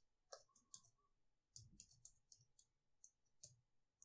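Faint computer keyboard keystrokes: single keys typed in an irregular string of about nine short clicks.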